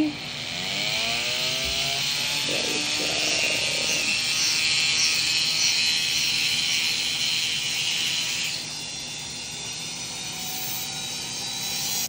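Small handheld rotary tool with a grinding stone bit grinding down a parrot's overgrown beak. It spins up with a rising whine over the first couple of seconds, then runs with a steady high whine. About eight and a half seconds in it turns quieter.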